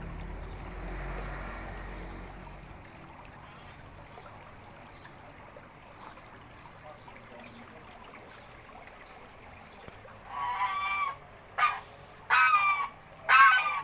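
A fowl calling with four loud honks in the last few seconds, the first and last two longer and one short.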